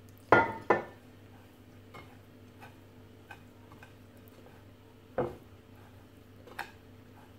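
A hand rubbing and tossing damp steamed angel-hair vermicelli in a glazed earthenware dish, knocking against the dish: two sharp knocks just after the start, another about five seconds in, a lighter one near the end, and faint ticks between. The strands are being worked apart as water is rubbed in between steamings.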